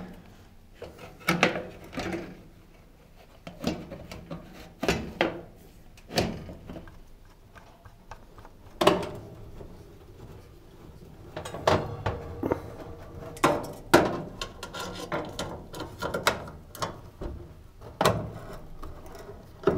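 Scattered knocks, clicks and rubbing as a sheet-metal cooker control panel is pushed back into place, then a screwdriver driving the panel's fixing screws in from underneath.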